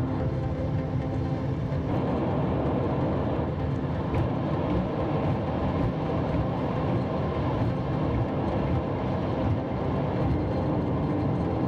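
Steady road and engine noise of a car driving, heard from inside the car.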